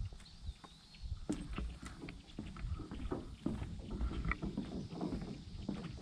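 Footsteps on a wooden boat dock: hollow knocks and thumps of shoes on the boards, about two a second.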